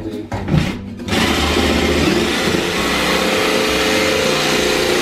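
Electric jigsaw starting about a second in and then cutting steadily through drywall, a dense, even buzz that holds at one level.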